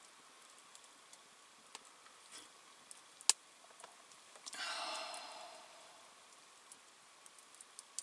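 Campfire crackling faintly with scattered small pops, and one sharp pop a little over three seconds in. About halfway through comes a louder breathy rush lasting about a second and a half, which fades out.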